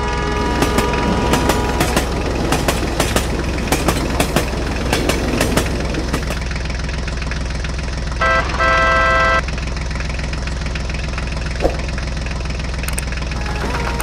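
Tractor engine running steadily with a low chug, with a horn tooting twice a little past the middle, a short toot then a longer one.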